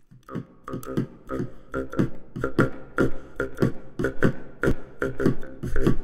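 Rhythmic percussive soundtrack: a steady beat of sharp hits, several a second, over a pitched humming tone, starting just as it opens.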